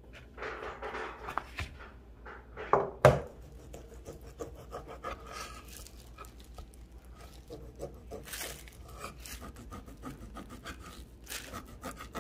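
Kitchen knife sawing through a slab of raw pork belly on a wooden cutting board in soft, repeated strokes. Two sharp knocks on the board about three seconds in are the loudest sounds.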